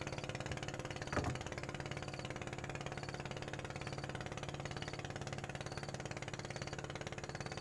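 Small wooden boat's engine idling steadily, with a single knock about a second in.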